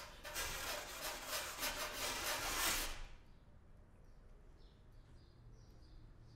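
Recorder trio playing extended techniques: a rushing, pitchless breath noise with a rapid flutter through the recorders, which cuts off about three seconds in. Faint short high chirps follow.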